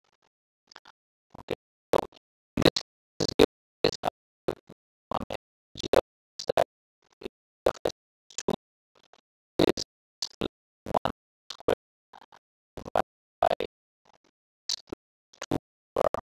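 Stylus tapping and knocking on a tablet's writing surface during handwriting. Short, sharp knocks come unevenly, about two a second, with silence between them.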